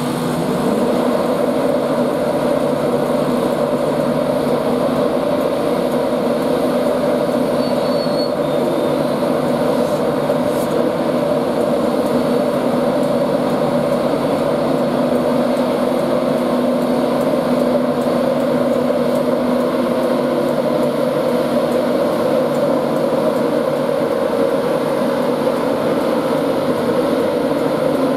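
Class 91 electric locomotive running with a steady, loud humming drone of several held tones that do not rise or fall.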